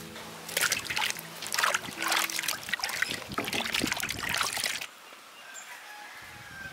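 Water sloshing and splashing in a steel basin as hands scrub and wash green bell peppers, in irregular loud splashes that stop suddenly about five seconds in.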